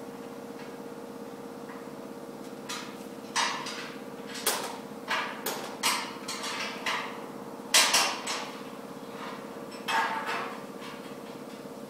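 Hammer blows on metal, about a dozen irregular strikes with short ringing tails, the loudest two coming close together past the middle. A steady machine hum runs underneath.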